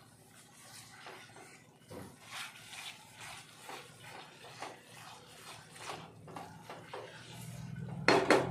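Spatula scraping and stirring semolina roasting in ghee in a metal kadai, a rasping stroke every half second or so. Near the end come two loud clacks of the spatula against the pan.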